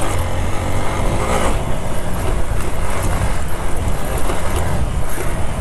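Hero Xpulse 200's 200cc single-cylinder engine running steadily while the bike is ridden over a dirt track, with a few brief knocks from the rough surface.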